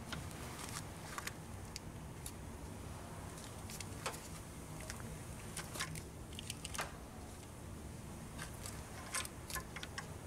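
Scattered light clicks and clinks of a gloved hand working an air-conditioning line fitting and its electrical connector in a car's engine bay, with a cluster of clicks near the end, over a low steady hum.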